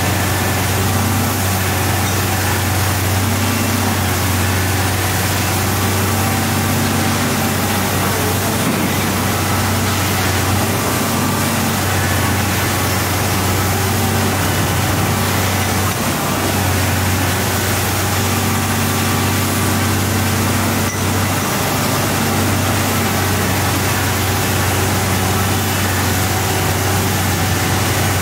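Large diesel engine of a Komatsu PC1250 demolition excavator running steadily with a deep, constant note, with a steady hiss above it.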